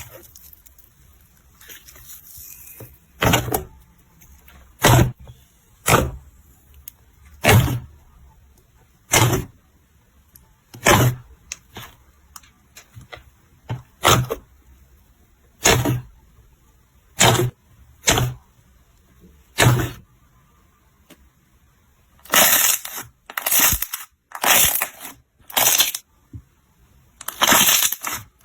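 Slime being pressed by hand, each press giving a short, sharp crackle, about one every one and a half seconds. Near the end the crackles come in longer, denser clusters.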